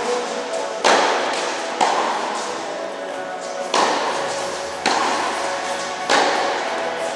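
Tennis ball being struck by rackets and bouncing on an indoor court during a rally, about five sharp hits that ring out in the hall's echo, under a steady background of sustained tones.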